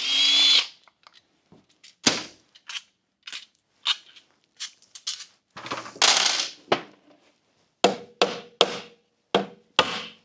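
A cordless power driver whirs briefly at the start, undoing an engine cover bolt. Then come scattered metal clinks, taps and knocks from tools and parts on the engine cover, with a longer rustling burst about six seconds in.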